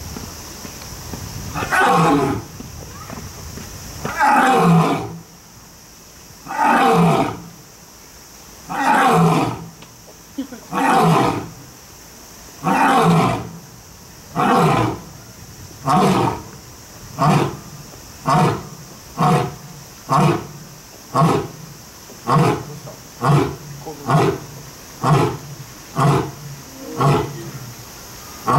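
Male African lion roaring a full bout: a few long, deep roars each falling in pitch, running into a series of shorter grunting roars that come faster and faster, nearly one a second near the end.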